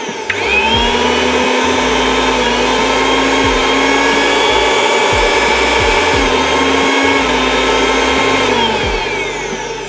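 Eveready MG500i mixer grinder's 500-watt motor running at high speed with a loud, steady whine. Its pitch steps up in the first few seconds, then falls away near the end as it winds down.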